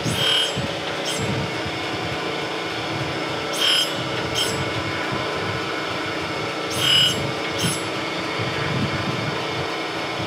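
Surface grinder running with a steady hum. A short, ringing grinding hiss comes each time the table carries the high-speed steel tool blank under the abrasive wheel: about every three and a half seconds, some passes giving two contacts close together. These are light passes cutting the angled faces of a threading tool.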